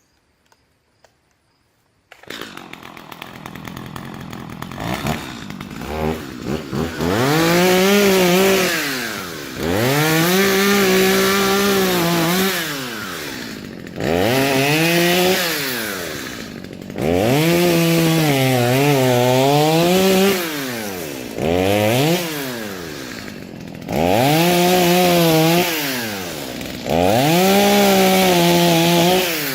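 Stihl MS 230 C two-stroke chainsaw idling from about two seconds in, then repeatedly revved to full throttle for a few seconds at a time, about seven times, dropping back to idle between. The engine pitch sags during several bursts as if bogging under load in a cut.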